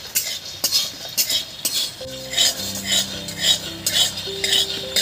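A metal spatula scrapes and stirs raw peanuts around a dry metal karahi, in strokes about two a second, with the nuts rattling over the bare pan. The peanuts are being dry-roasted with no oil, salt or sand, so there is no sizzle. Faint steady musical tones come in about two seconds in.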